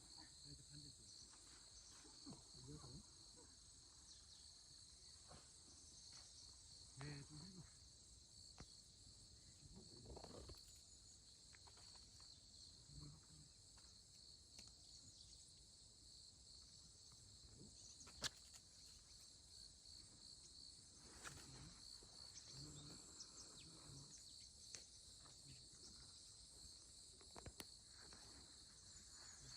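Grass insects such as crickets chirring faintly and steadily, a high pulsing trill that keeps on without a break. Soft low rustles come here and there, and a single sharp click about eighteen seconds in.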